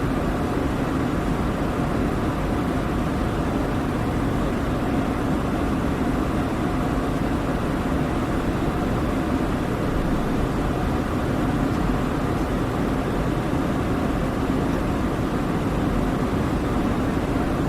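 Douglas DC-8 jet airliner's engines, a steady drone that holds even throughout with no rise or fall.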